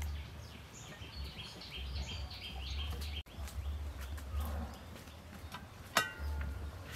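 A bird chirps in a quick run of high calls over the first three seconds, over a low rumble. About six seconds in, a metal pot lid clanks and rings briefly as it is lifted off the pot.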